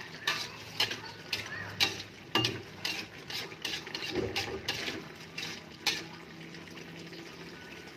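Metal spatula scraping and tapping against an aluminium wok, about two strokes a second, while stirring coconut milk continuously to keep it from curdling; the strokes stop about six seconds in.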